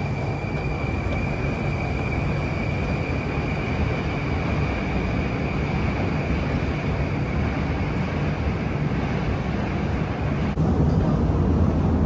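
Moscow metro train running with a steady rumble and a high, even whine that fades away, then a sudden rise in rumble near the end.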